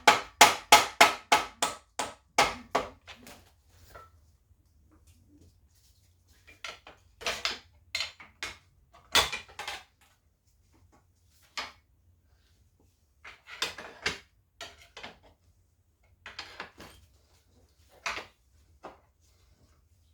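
Hand tools and steel engine parts being worked on a bench: a fast, even run of sharp metallic taps for the first two or three seconds, then scattered clinks and clatters of metal on metal.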